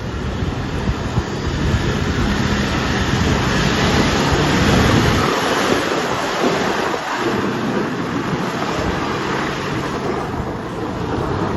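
Off-road vehicle engine running under a loud, steady rushing wash of noise. The engine's low hum drops away in the middle and returns near the end.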